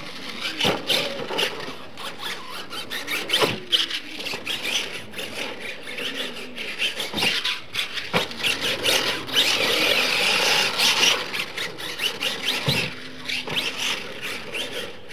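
Radio-controlled monster truck running and jumping on a dirt course: its motor whines up and down in pitch as it revs and its tyres scrabble on the dirt. Several sharp knocks of the truck landing and hitting ramps are spread through it.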